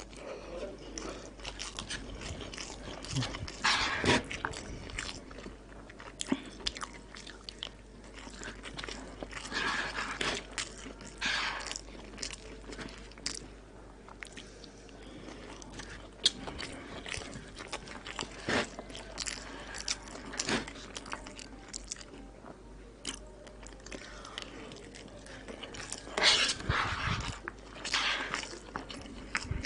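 Close-miked eating sounds of koshari: a man chewing and biting mouthfuls in irregular bursts, with a few sharp clicks. The louder bursts come about four seconds in and again near the end.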